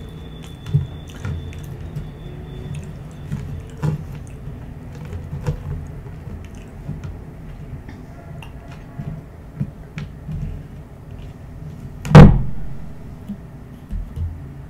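Close-miked eating: chewing french fries with small clicks and soft handling noises. A single loud thump about twelve seconds in is the loudest sound.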